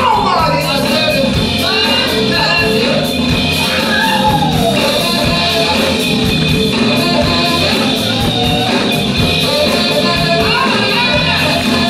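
A live soul band playing: drum kit, congas and electric keyboard, with singing over the groove.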